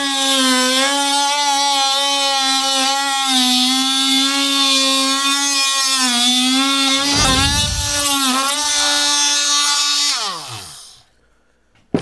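Milwaukee M18 cordless oscillating multi-tool running with a steady high-pitched hum as its worn wood-with-nails blade plunge-cuts into a pine 2x4. The pitch dips a couple of times as the blade bogs under load, a slow, hard cut for a blade that has already gone through about 50 nails. Near the end the trigger is released and the motor winds down, falling in pitch.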